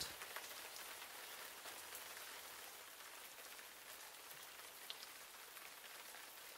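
Faint, steady rain: an even hiss of falling drops, with one slightly louder drop just before five seconds in.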